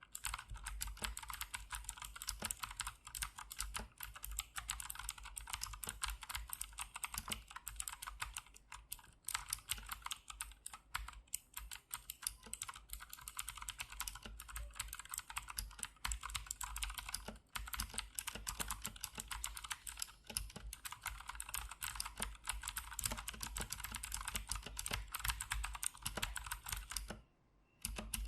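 Fast continuous typing on a Gamdias Hermes E3 60% mechanical keyboard with clicky blue switches: a dense stream of sharp key clicks, with a brief pause near the end.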